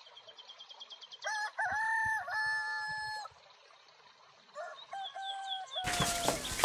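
A rooster crowing twice: a loud crow ending in a long held note about a second in, and a fainter crow near the end, with faint high bird chirps between.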